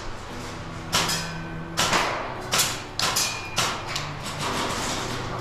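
Airsoft gunfire in an indoor close-quarters field: a string of irregular sharp cracks and knocks, shots and BBs striking hard surfaces.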